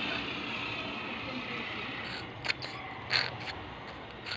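Hissing of a carbon-arc soldering heat on a starter motor's brush lead, dying away over the first second or so as the heat comes off the joint. A few sharp clicks of metal parts being handled follow, about two seconds in and again near the end.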